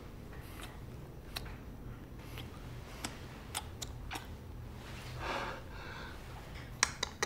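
Quiet room tone with a low steady hum, broken by scattered sharp clicks and taps, two or three in quick succession near the end.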